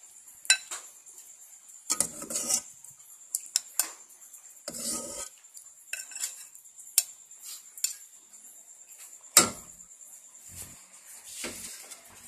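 A metal ladle clinking and scraping against an aluminium pot and a ceramic bowl as soupy curry is ladled from one to the other, with short splashes of broth. The clinks come irregularly, and a sharp clank about nine seconds in is the loudest.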